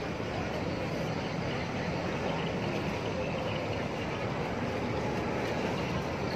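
A ferry's engine running steadily, a low, even noise with no breaks.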